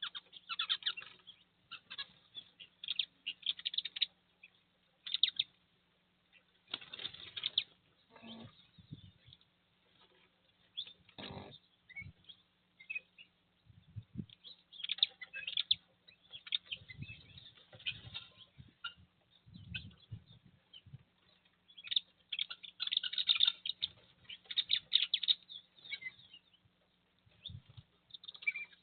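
Small songbirds chirping and twittering in short, irregular bursts, with several louder wing flaps among them.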